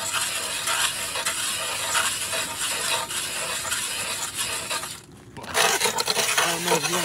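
Hand-crank ice auger's blades shaving through lake ice: a steady grinding scrape as it is turned, breaking off briefly about five seconds in and then starting again.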